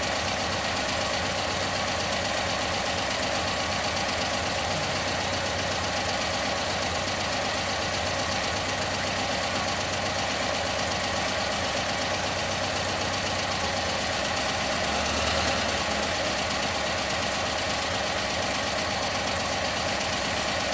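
1974 VW Super Beetle's freshly rebuilt air-cooled flat-four idling steadily, warmed up and running smoothly on a re-jetted carburettor. It picks up slightly about three quarters of the way through.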